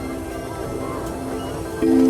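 Background music with sustained chords, a louder chord coming in near the end.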